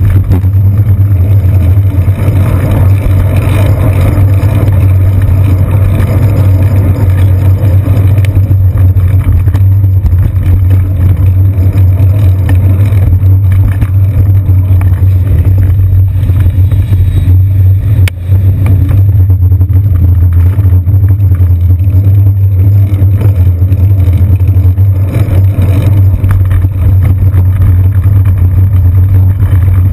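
Loud, steady low rumble of wind and road vibration picked up by a seat-post-mounted GoPro Hero 2 on a moving bicycle, with a short dip and a click about two-thirds of the way through.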